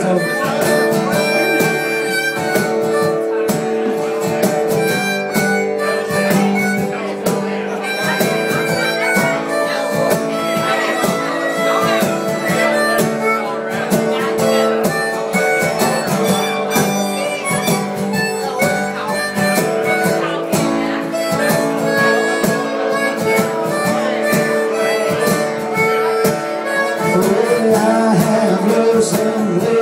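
Harmonica solo played through a microphone, with long held and bending notes, over guitar and a steady cajon beat.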